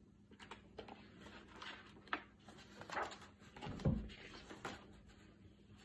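Hardcover picture book being opened and its pages turned: a few soft paper rustles and light taps, with a soft low thump about four seconds in.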